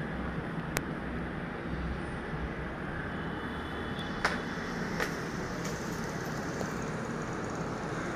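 Steady noise of road traffic, with a few short sharp clicks.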